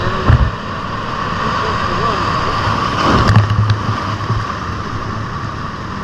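Ocean surf washing in among large rock boulders, with one louder surge of water about three seconds in. A low thump on the microphone comes just after the start.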